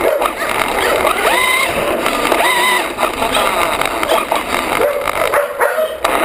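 Brushless electric motor of a 1/5-scale RC buggy on a 22.2 V pack whining, its pitch surging up and down several times as the throttle is worked. Under it runs a steady rush of tyre and drivetrain noise on paving stones, picked up by a camera mounted on the car.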